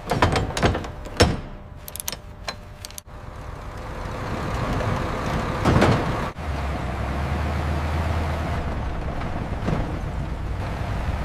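Chain and binder hardware clanking sharply a few times in the first three seconds, then a heavy transport truck's engine running with a steady low drone.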